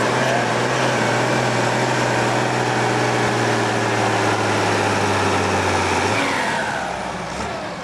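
SAME Titan 190 tractor engine running hard at high revs under full load, dragging a weighted pulling sled on a dirt track. Its low, steady note drops away about six seconds in, and the sound then fades as the engine comes off load.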